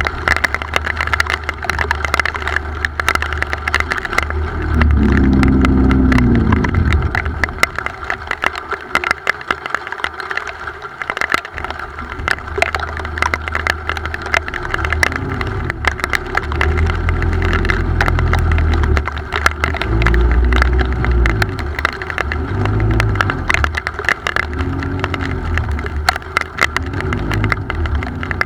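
A motor engine running, swelling and shifting in pitch about five seconds in and again several times in the second half, over a dense crackle of small ticks.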